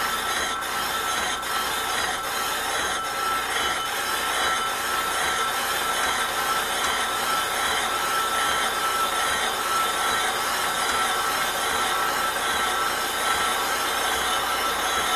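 Atlas brake lathe resurfacing a brake rotor: the cutting bits scrape across the spinning rotor face with a steady metallic screech and a high whine held throughout. A few faint clicks come in the first few seconds.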